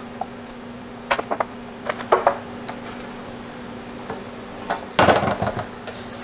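Metal baking pan knocking and clattering as a block of macaroni and cheese is worked loose and tipped out onto a parchment-lined metal freeze-dryer tray. A few light knocks come in the first couple of seconds, then a louder scraping clatter about five seconds in as the block comes down on the tray. A steady low hum runs underneath.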